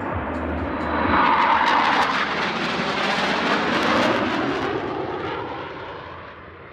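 Jet noise from a formation of Northrop F-5E Tiger II fighter jets flying past. It builds to its loudest about a second in and holds for a few seconds. Then the pitch drops and the sound fades away towards the end.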